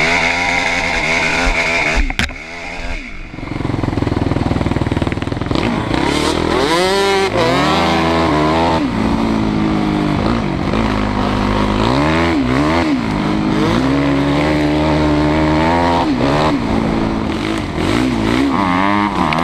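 Off-road vehicle engine running close up, revving up and dropping back again and again as it is ridden along a dirt track. A sharp knock about two seconds in.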